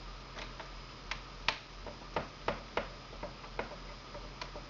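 A small screwdriver turning a screw into a laptop's plastic screen bezel: about a dozen light, irregular clicks, the loudest about a second and a half in.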